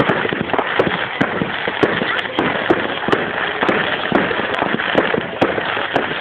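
Fireworks going off in quick succession: a dense, irregular run of sharp bangs and crackles, several a second.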